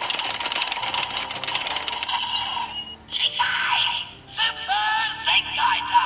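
Super Sentai toy gear-reader playing back a spun Sentai Gear: about two seconds of rapid electronic clicking over a steady beep, then the small speaker plays a synthesized voice call and effect jingle.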